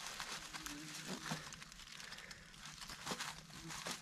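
Faint rustling and crackling of dry fallen leaves as hands work at a beaver trap, with a few small clicks.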